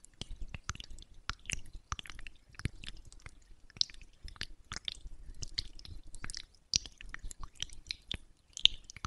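Fingertips spreading and pressing moisturising lotion over a mannequin's face close to the microphone: a dense, irregular run of small wet, sticky clicks and squishes.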